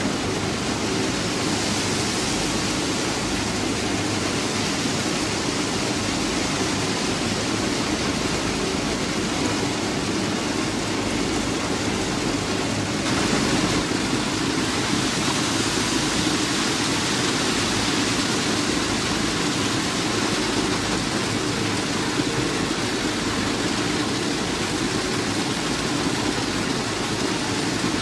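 Plasser & Theurer PM 1000-URM formation rehabilitation machine running at work: a steady, loud rushing noise with a low hum beneath it and no pauses. It turns a little louder and brighter about halfway through.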